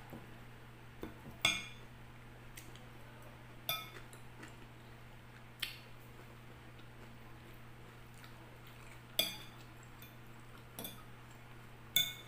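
Metal fork clinking against a glass bowl as it picks through leafy salad: about five sharp, ringing clinks spread out, with fainter ticks and scrapes between them.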